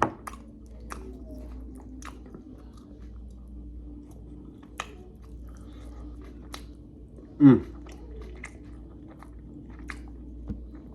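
Close-up chewing and wet mouth clicks of someone eating a short rib. A brief, loud voiced sound from the eater falls in pitch about seven and a half seconds in. A low steady hum runs underneath.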